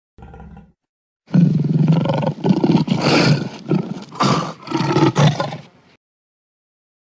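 Lion roars: after a brief snatch at the start and a short gap, a run of several overlapping roars starting about a second in, which stop about a second before the end.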